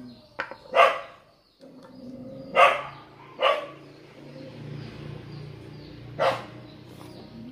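A dog barking: four short, loud barks, irregularly spaced.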